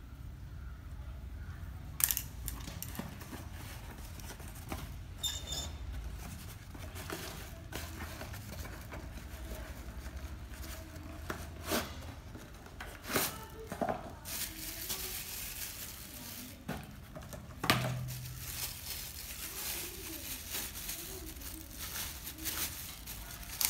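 Unboxing handling noise: a few sharp knocks as a plastic phone clip and a cardboard box are handled and set on a stone surface, then from about halfway through a clear plastic bag crinkling as the mini tripod inside is unwrapped. A low steady hum runs underneath.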